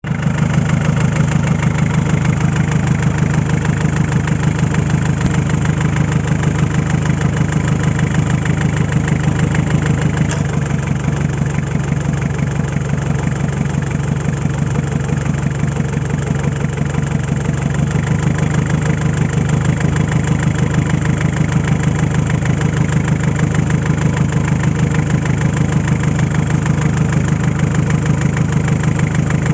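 Mitsubishi 4D56 2.5-litre four-cylinder diesel idling with a steady rhythmic knock, whose cause the owner is asking others to identify.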